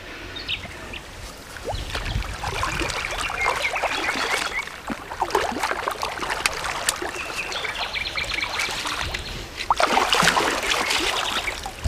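River water splashing and sloshing as an angler wades through the shallows and lets a large wels catfish go, louder splashing near the end.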